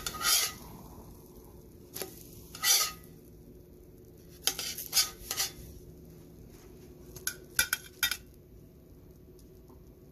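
Spatula scraping and clicking against a hot dosa pan in several short bouts as a dosa is loosened and turned, over a faint sizzle.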